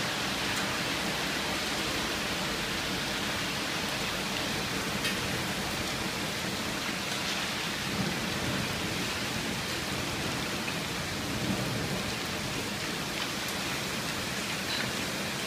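Heavy rain pouring down in a steady hiss, with a few faint drip ticks.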